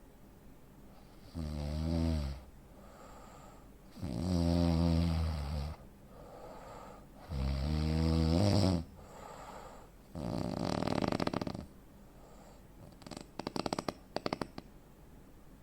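A man with sleep apnea snoring heavily: three snores about three seconds apart, then a long breathy breath without the snore tone, then a quick run of sharp clicks near the end.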